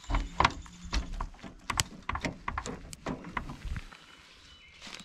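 Footsteps crunching through woodland undergrowth, an irregular run of crackles and snaps that stops about four seconds in.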